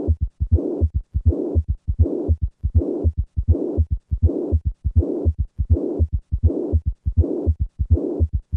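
Heart sounds of acute mitral regurgitation from a ruptured chorda tendineae: a systolic murmur with a third and a fourth heart sound, beating steadily at about 80 beats a minute.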